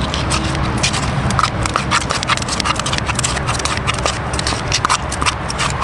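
Scissors snipping quickly and repeatedly, a few short clicks a second, as earthworms and bloodworms are chopped into a fine mush for groundbait.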